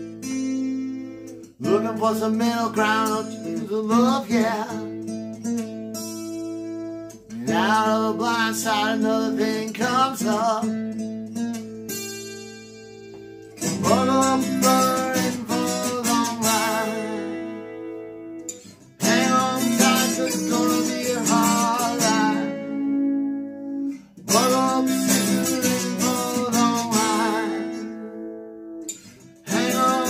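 Gibson Gospel acoustic guitar strummed in slow chords that ring out and fade, a fresh strum every five or six seconds.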